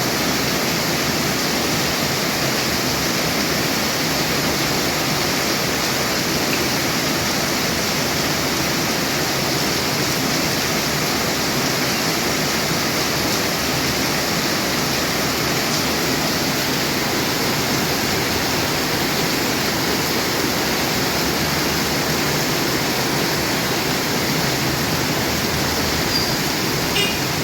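Heavy rain falling steadily as a dense, even hiss with no change in level.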